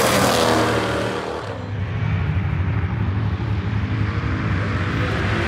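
A muscle car's engine passes close by, its pitch falling as it goes past and slows. It then settles into a steady low exhaust rumble.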